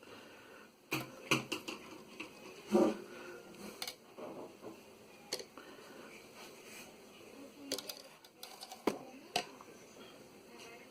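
Irregular small clicks and taps of tweezers and soldering tools against a TV power-supply circuit board during soldering work, a few sharp ticks a couple of seconds apart.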